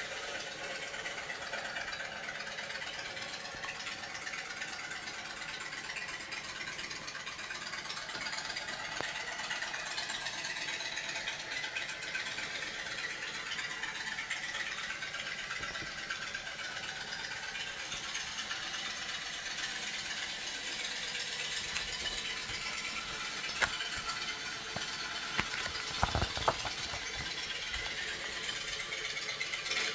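Steady background hiss, with a few soft knocks and clicks about three-quarters of the way through.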